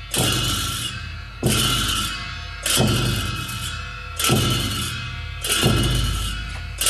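Tibetan monastic ritual dance music: drum and cymbals struck together six times, a little over a second apart, the cymbals ringing on and fading between strikes.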